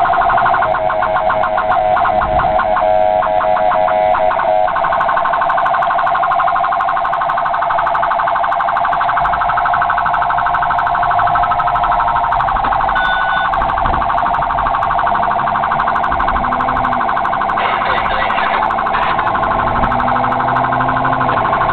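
Electronic emergency siren sounding from the responding vehicle, heard from inside the cabin. A choppy pulsing pattern for the first few seconds gives way to a fast, continuous warble.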